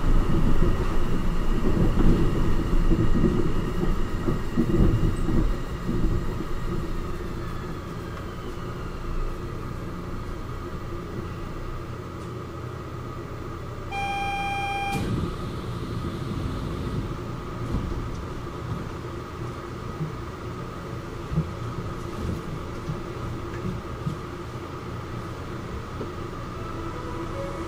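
Kobe Port Liner rubber-tyred automated train slowing to a stop at a station: its running rumble fades over the first several seconds and gives way to a low steady hum while it stands. About halfway through, a single electronic beep sounds for about a second.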